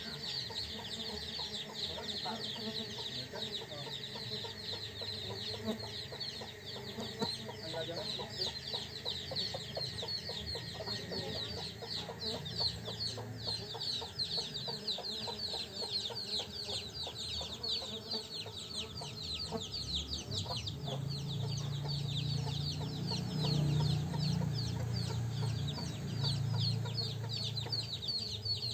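A steady, fast, high-pitched chirring of insects runs under chickens clucking in the background. A low buzz of Tetragonula stingless bees flying near their hive box swells about two-thirds of the way through.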